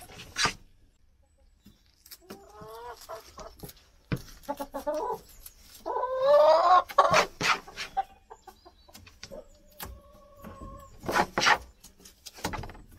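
Domestic hen clucking, with a few drawn-out calls between about two and seven seconds in. Sharp rustles and knocks of double-sided tape being handled and pressed onto a wooden perch, loudest about eleven seconds in.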